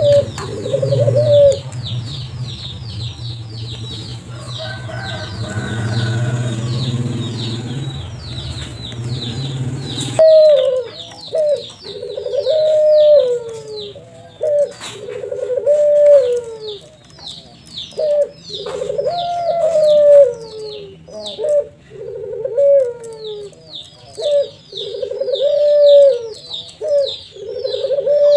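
Barbary dove (puter) cooing over and over, each coo rising and then falling, most steadily after about ten seconds in. A fast run of short high chirps from another bird goes on behind it, and a low hum stops suddenly about ten seconds in.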